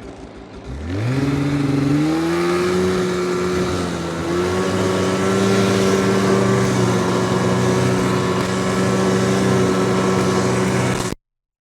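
Snowmobile engine revving up about a second in, its pitch rising quickly, then running steadily at high speed with a brief dip, before cutting off suddenly near the end.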